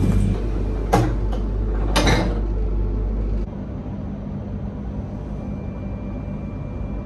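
Steady low hum inside a Shinkansen car, with two knocks about a second apart from the car's push-button sliding restroom door. About three and a half seconds in, the hum cuts off and gives way to quieter station platform ambience.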